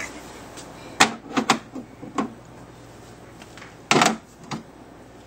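A few sharp taps and knocks, spread over the first couple of seconds, then a louder, slightly longer knock about four seconds in and a small tap just after.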